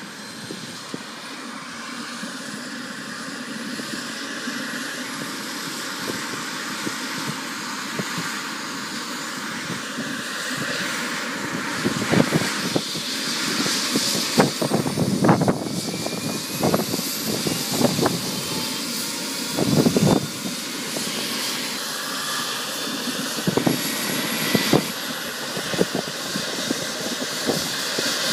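Helicopter's turbine engine running on the pad, a steady whine and rush that slowly grows louder with faint rising high tones. From about twelve seconds in, irregular low thumps of buffeting break through.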